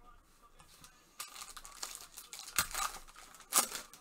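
Foil wrapper of a Panini Prizm football card pack crinkling as it is torn open, starting about a second in, with two louder rips near the end.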